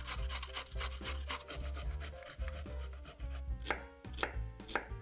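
A carrot rubbed quickly up and down a metal box grater, a dense run of rasping strokes, then a chef's knife chopping an onion on a cutting board, about four sharp chops near the end.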